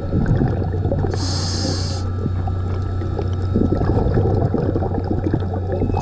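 Scuba diver breathing through a regulator underwater: a short hiss of inhaling about a second in, exhaled bubbles gurgling in the middle, and the next inhale starting at the end, over a steady low hum.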